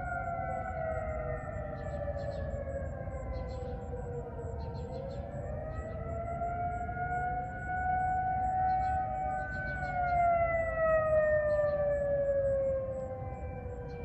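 Several outdoor warning sirens from neighbouring towns sounding at once in a routine siren test, a mix of steady alert tones and wailing attack signals overlapping, their pitches gliding slowly up and down. The loudest one falls in pitch from about ten seconds in.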